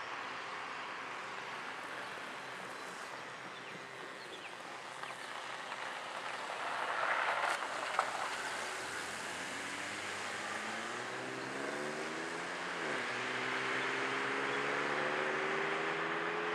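A car passes close by about seven to eight seconds in. Then the straight-piped 4.3-litre V6 of a 1998 Chevy Blazer accelerates in the distance. Its exhaust note climbs in pitch, drops at a gear shift near thirteen seconds, and climbs again as it approaches.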